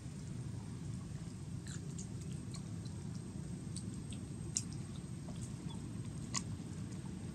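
Long-tailed macaques chewing food, heard as scattered faint crisp clicks and crunches over a steady low outdoor rumble.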